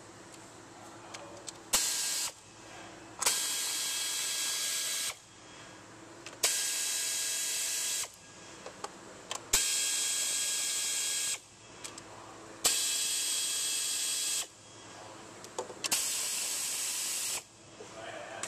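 Snap-on air ratchet running bolts on the timing belt cover in six separate bursts. Each burst is a loud hiss with a steady whine, lasting one to two seconds, with short pauses between them.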